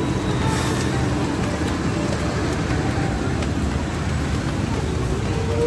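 Steady road traffic noise on a wet, rainy street, a continuous rumble of vehicle engines.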